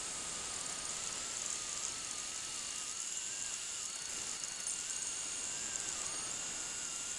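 MakerBot Replicator 2 3D printer running a print: a steady high hiss with a faint whine that wavers up and down in pitch as the extruder carriage moves.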